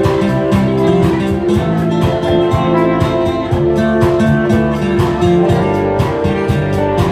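Instrumental passage of a song with a steady beat.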